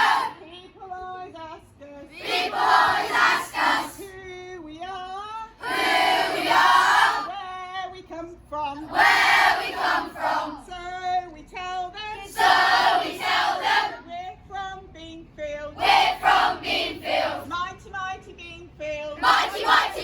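Children's voices in a call-and-response chant: a single voice calls out a line and a group of children shouts it back, the loud group replies coming about every three to four seconds.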